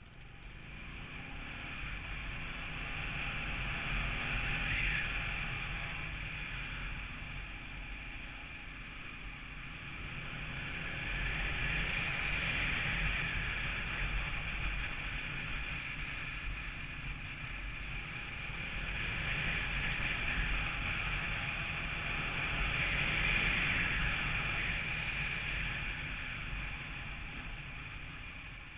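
Wind rushing over an onboard camera's microphone together with road noise from a moving vehicle, swelling and easing in slow waves as the speed changes.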